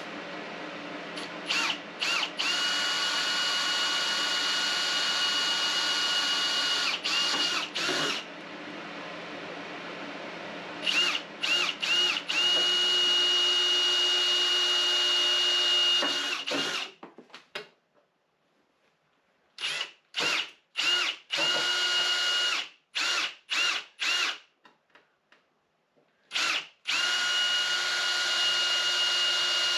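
Cordless drill running at a steady whine in three long runs of several seconds, with many short trigger blips between them; past the middle comes a stretch of only quick, separate blips with near quiet in between.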